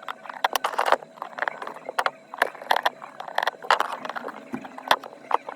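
Small repair tools clicking, tapping and scraping against an iPhone's body during a back-glass replacement, in an irregular, close-up run of sharp clicks and short scrapes.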